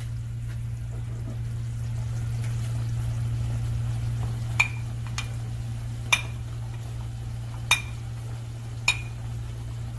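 Plastic spatula clinking against a ceramic plate and the pot as fried boiled eggs are pushed off the plate into the curry: four sharp clinks, about a second and a half apart, starting about halfway through. A steady low hum runs underneath.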